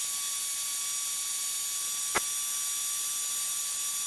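Steady electronic hiss with a thin, steady whine, like the line noise of an aircraft intercom or radio audio feed, with a single sharp click about two seconds in.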